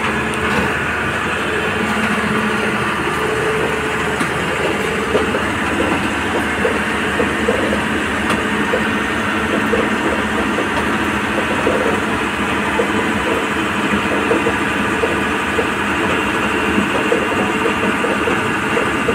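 Hyundai 215L crawler excavator's diesel engine running steadily as the machine works.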